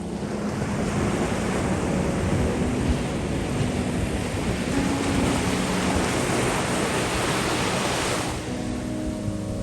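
Heavy Atlantic surf breaking on the beach: a dense wash of noise that builds about a second in and eases near the end.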